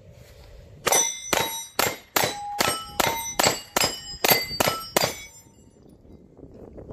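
Sarsılmaz SAR9C 9mm compact pistol fired in a quick string of about eleven shots over some four seconds, starting about a second in, each shot followed by the brief ringing of hit steel plate targets.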